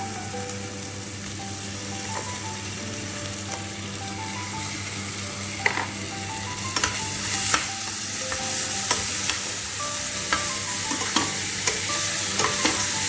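Onions and ginger-garlic paste frying in hot oil, sizzling steadily. From about halfway through, a spoon scrapes and clicks against the pan as the mixture is stirred.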